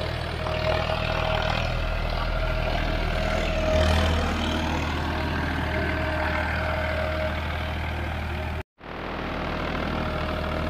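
Farmtrac 60 T20 tractor's diesel engine running steadily while it pulls an 18-disc harrow through a ploughed field. The sound cuts out for a moment about three quarters of the way through.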